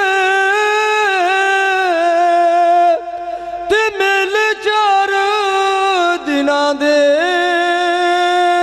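A man singing a Punjabi devotional kalam unaccompanied into a microphone, holding long, ornamented notes. There is a short break about three seconds in.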